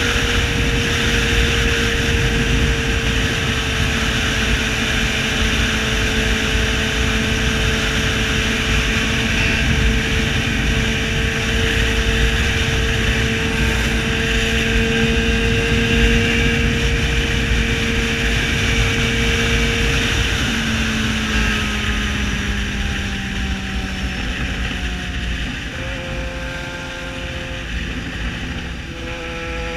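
Yamaha XJ6's 600 cc inline-four running loud at steady cruising revs over a rushing road and wind noise. About two-thirds of the way through the revs drop as the bike slows, and they pick up again near the end.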